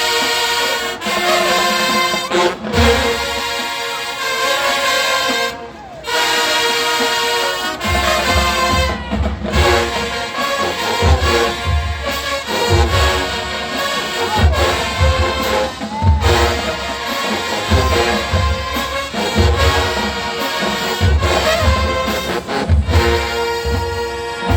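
Marching band playing: loud brass chords broken by short stops in the first several seconds, then bass drums come in about eight seconds in, beating under the horns.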